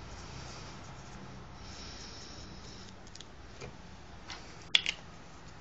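Felt-tip flipchart marker rubbing across paper in strokes about a second long, then a few faint clicks and a sharp knock a little before the end.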